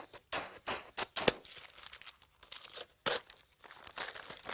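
A sheet of paper rustling and crinkling in a run of short, sharp crackles as it is taken out of a bowler hat and unfolded.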